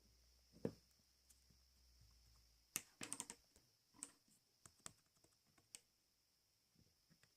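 Faint, scattered clicks and taps, with a quick run of them about three seconds in, over a faint steady high whine.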